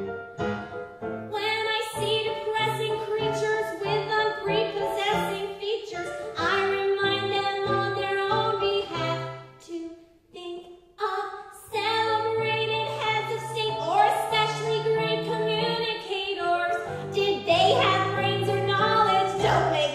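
Small live band of brass and keyboard playing a bouncy show-tune accompaniment, with a short break about ten seconds in.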